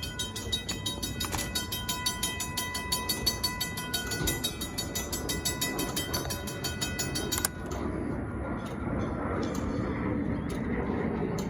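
Wigwag railroad crossing signal running, its mechanism making rapid, even clicking over a steady electric whine. About seven and a half seconds in this stops suddenly, giving way to a steady, low outdoor background noise.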